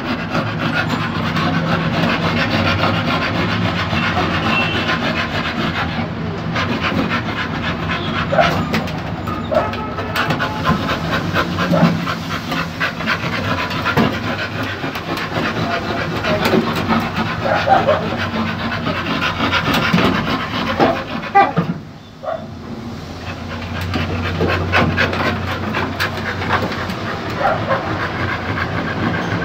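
Two pit bulls panting and moving about close to the microphone, their claws and bodies scraping and scuffling on the wooden boards of a truck bed.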